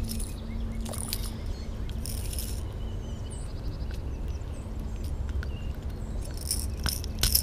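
Handling noise from a white bass held in the hand: a few short rustles and clicks, about one and two seconds in and again near the end, over a steady low rumble of wind on the microphone. Faint bird chirps come in between.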